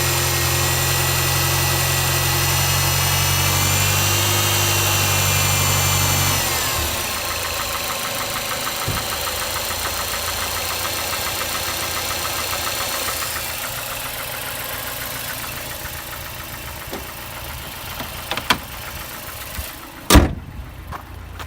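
Mazda 6 MPS 2.3-litre turbocharged four-cylinder engine running, dropping in pitch about six seconds in as it falls back to idle, where it knocks steadily; the knock appears only below about 1500 rpm, and the owner suspects the VVT actuator (cam phaser) or the camshaft. A few sharp clicks near the end, the loudest just before the end.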